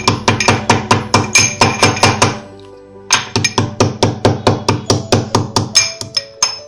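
Metal pestle pounding dried soya chunks in a steel mortar, quick ringing metallic strikes about four or five a second, with a short pause a little over two seconds in.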